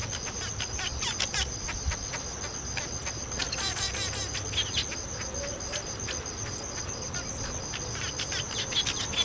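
Outdoor nature ambience: a steady high-pitched insect trill with scattered short bird chirps over it, and a faint low rumble.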